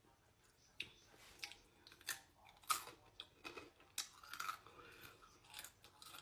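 Crunching and chewing of Dynamita Doritos, rolled spicy tortilla chips, bitten off and chewed: a run of sharp, irregular crunches about half a second to a second apart, the loudest nearly three seconds in.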